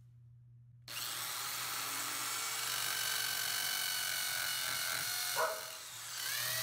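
Corded electric drill boring into ceramic wall tile. It starts about a second in and runs steadily, slows briefly about five seconds in, then speeds back up near the end.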